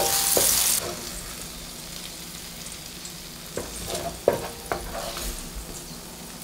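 Garlic cloves frying in oil in a stainless steel pan: a loud sizzle for the first second that drops to a faint fizz once the burner has been switched off. A few light clicks of wooden chopsticks against the pan and bowl come between about three and a half and five seconds in, as the fried garlic is lifted out.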